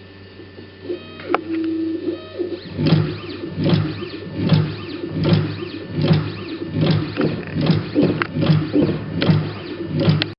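Angle tape-cutting machine with a heated knife running: a steady motor hum under short tones and a click about a second in. From about three seconds in comes a regular cutting cycle, one stroke roughly every 0.8 seconds.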